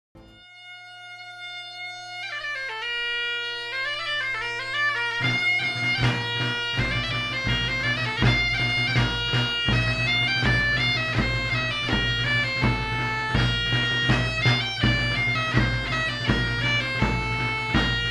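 Bagpipe music. A steady low drone comes first, and the chanter's melody enters about two seconds in. After about five seconds the sound fills out, and a steady low drum beat joins.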